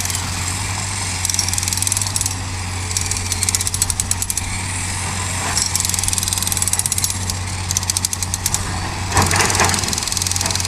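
Hitachi hydraulic excavator's diesel engine running steadily under work, with three short bursts of rapid clattering and a louder surge near the end.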